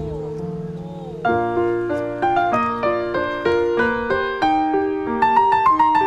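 Background music: a held chord for about the first second, then a piano comes in playing a melody of separate struck notes, each fading, two or three a second.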